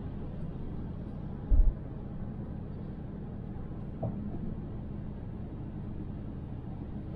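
Car driving: steady low road and engine rumble, with one short, loud low thump about one and a half seconds in and a faint knock around four seconds.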